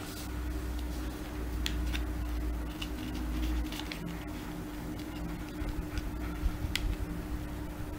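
Origami paper being folded and creased by hand: a few scattered soft crinkles and taps over a steady low background hum.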